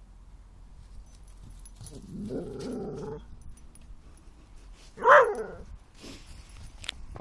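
Whippets at rough play: a low growl lasting about a second, then one short, sharp bark about five seconds in, dropping in pitch. The bark is the loudest sound.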